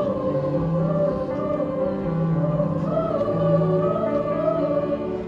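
A choir singing long held notes with a slow waver in pitch, over a lower part holding notes beneath.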